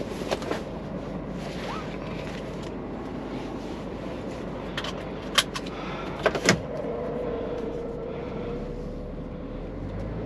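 Steady engine and road noise inside the cab of a moving Scania truck, with a handful of short, sharp clicks between about five and six and a half seconds in.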